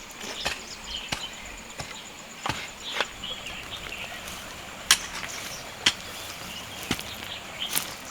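Tree branches being pruned: about nine sharp cutting snaps, irregularly spaced roughly a second apart.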